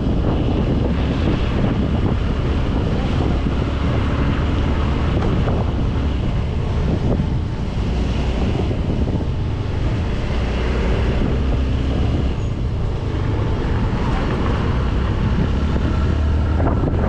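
Wind buffeting the microphone on a moving Yamaha RayZR 125 scooter, with the scooter running underneath. No front-panel rattle stands out: the panel noise appears cured.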